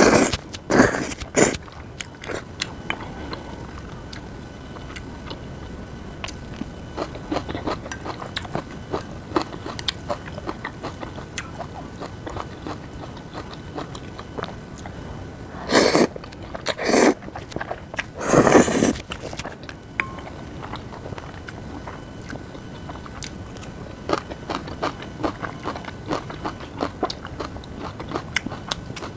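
A person eating close to the microphone: steady chewing with many small crunchy clicks, and a few louder, longer bursts of eating noise near the start and about two thirds of the way through.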